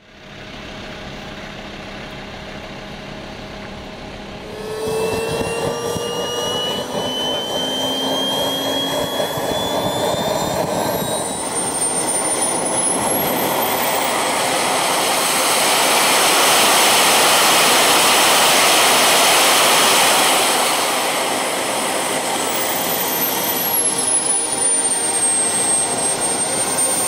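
Small gas turbine of a CARF Eurosport RC jet model starting up. After a steady low hum, a rising whine begins about five seconds in and the turbine spools up, its high whine climbing steeply. It runs loudest for a few seconds, then the whine settles back down to a steady idle near the end.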